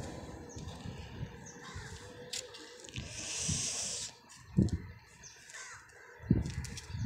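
Crows cawing in the distance, with dull low thumps, the loudest about four and a half and six seconds in, and a brief hiss around three seconds in.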